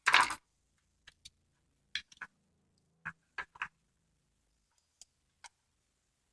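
Small metal clicks and a scrape as a retaining clip is worked off an American Lock 5570 padlock's core: one louder short scraping snap at the start, then a scatter of faint light clicks.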